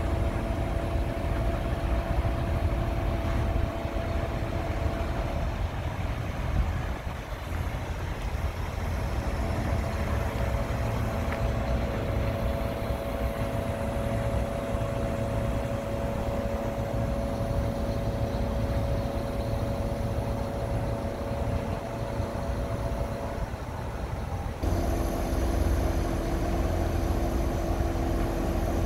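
MAN TGA 33.480 truck's straight-six diesel running steadily while its loader crane is worked, with a steady hum from the hydraulic drive over the low engine rumble. The hum's pitch steps to new levels a few times, about six seconds in, again around nine seconds, and near the end, as the crane is operated.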